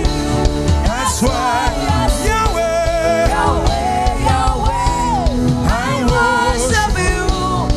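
Live gospel worship music: a band playing a steady beat under sung, gliding vocal lines.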